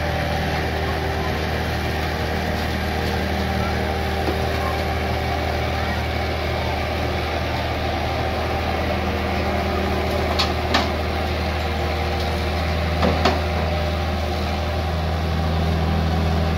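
Hitachi EX75UR-3 excavator's diesel engine running steadily while it works, with a few sharp knocks: a pair about ten seconds in and another pair about thirteen seconds in.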